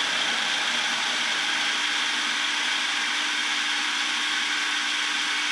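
Electric food processor running steadily, its blade chopping cooked beef into coarse mince; a loud, even motor whine with a low steady hum.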